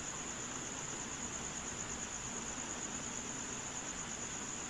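A cricket trilling steadily in a high, continuous pulsing tone, over a faint even hiss.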